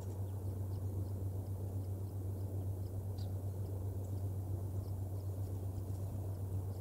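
Steady low hum and rumble of outdoor ambience on a nest-cam microphone, with faint, short, high chirps scattered throughout and one slightly stronger near the middle.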